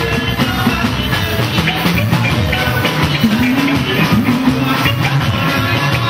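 A live band playing: electric guitars over a moving bass line and a drum kit keeping a steady beat.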